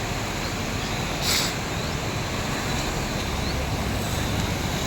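Rain-swollen river flowing, a steady wash of water noise, with a brief louder hiss about a second in.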